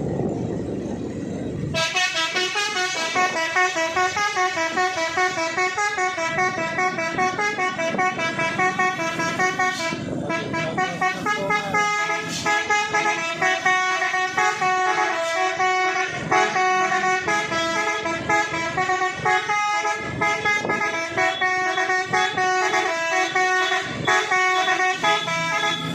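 Fuso truck's Basuri telolet multi-tone horn playing a tune: a fast run of loud pitched notes stepping up and down several times a second. It starts about two seconds in, after a low steady rumble.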